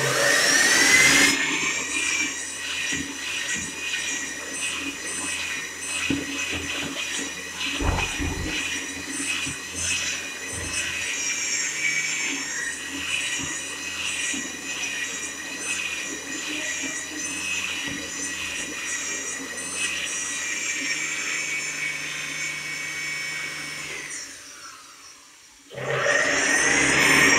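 Newlec hand dryer's motor starting with a rising whine, running very noisy with a high-pitched whine and rush of air, then winding down with a falling pitch before starting up again near the end.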